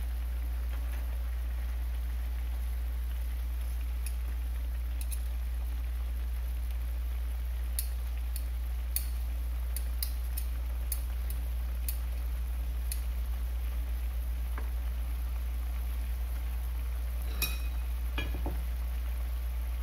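Fish braising in sauce in a nonstick frying pan, with a faint simmering sizzle, while metal tongs click against the pan and fish several times, mostly in the middle and again near the end. A steady low hum lies under it all.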